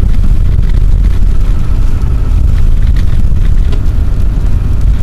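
Steady low rumble of a four-wheel-drive vehicle driving along a snow-covered road, heard from inside the cabin.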